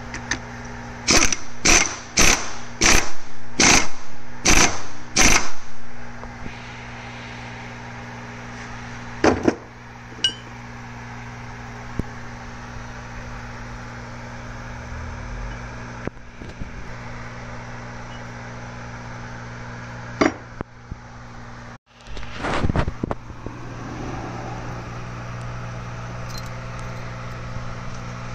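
Cordless impact wrench tightening the nut on a gear on a manual gearbox shaft, run in about seven short bursts in quick succession over the first five seconds. A few more single short bursts come later, over a steady low hum.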